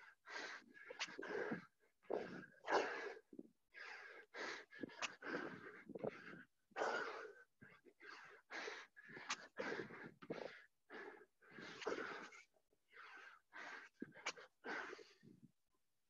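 Hard, fast breathing of a man mid-way through a set of burpees, about two breaths a second, each a short rush of air: the sound of heavy exertion.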